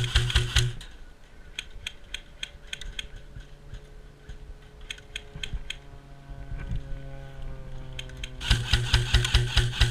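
Airsoft guns firing rapid full-auto bursts: one burst right at the start and another from near the end, with scattered single shots clicking in between. A faint steady hum sits underneath in the middle.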